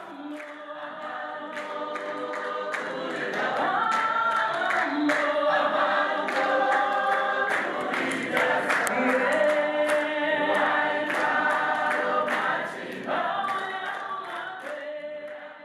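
Congregation singing a hymn together in worship, many voices at once. The singing swells in over the first few seconds and fades out near the end.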